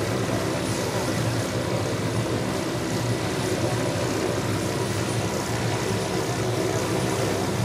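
Hughes OH-6 Loach and Bell UH-1H Huey helicopters running on the ground with their rotors turning: a steady turbine and rotor noise that holds level throughout.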